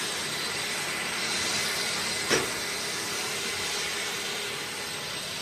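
2007 John Deere 9630 four-wheel-drive tractor pulling scraper pans, heard from afar as a steady rushing machine noise, with one sharp knock a little over two seconds in.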